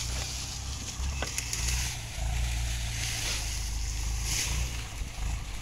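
Steady low engine rumble from heavy machinery running, with wind buffeting the microphone.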